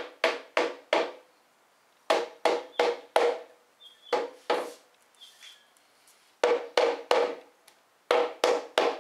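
Rubber mallet tapping a wooden spline into the glued slot along the edge of a 2x10 board: sharp wooden knocks in runs of about four, roughly three a second, with short pauses between the runs and two lighter taps in the middle.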